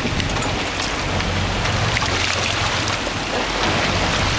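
Water splashing and churning as a hooked striped marlin thrashes at the surface beside the boat.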